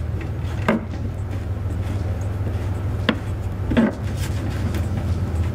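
Plastic underbody panel and its push-pin clips being pulled and worked loose by hand. A few short clicks and scrapes come about a second in and twice just past the middle, over a steady low hum.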